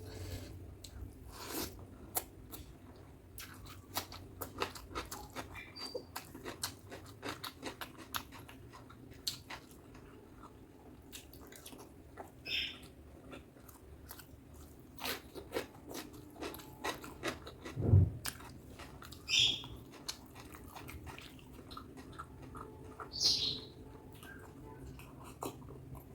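Close-miked eating of butter chicken and rice: chewing with many wet mouth clicks and smacks, plus a few short hissing smacks. One dull thump about eighteen seconds in is the loudest sound.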